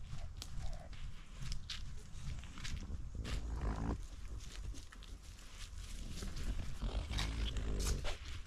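Mini shar pei wearing a harness-mounted GoPro, heard up close through the camera on her back: her breathing and snuffling over a low rumble of her body moving against the mount, with sharp crackles of dry leaves and twigs under her paws. A short rising vocal sound comes about three and a half seconds in.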